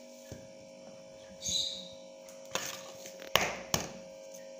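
An egg being cracked on the edge of a bowl: a crackle of breaking shell and two sharp knocks near the end. A steady electrical hum runs underneath.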